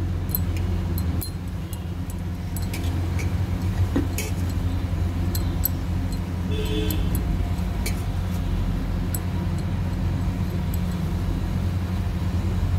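A steady low hum, with a few faint light clicks scattered over it.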